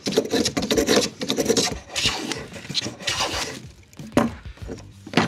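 A metal bench plane shaving a resawn maple board in a bench vise, taking it down toward a quarter-inch thickness. There is a run of scraping cutting strokes, then a few single strokes, and two sharp knocks near the end.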